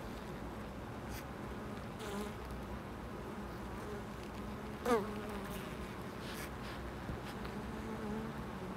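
Honeybees buzzing at the hive entrance: a steady low hum of many wings. About five seconds in, one bee flies close past the microphone, a brief louder buzz that sweeps sharply in pitch.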